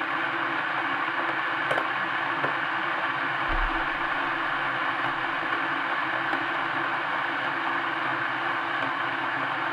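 SMEG electric kettle heating water: a steady, even hiss with a low hum beneath it.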